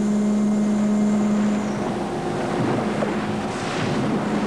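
A steady low hum of boat engines under wind and sea noise.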